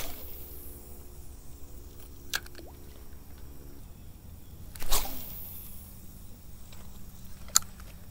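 Spinning rod and reel being handled for a cast: a few sharp clicks from the reel, and one louder swish about five seconds in as the line goes out. A low steady rumble sits underneath.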